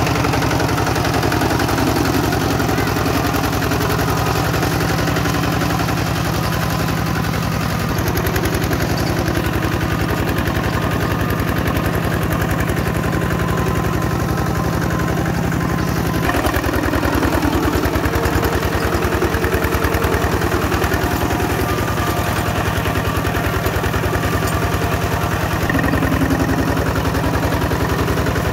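Kubota diesel engine running steadily with a rapid clatter. Its sound changes abruptly a few times.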